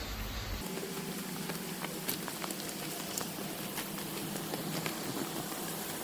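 Footsteps crunching over loose rocks in a dry, stony stream bed: irregular clicks and knocks of stone on stone over a steady hiss. A faint low hum sits underneath from about half a second in.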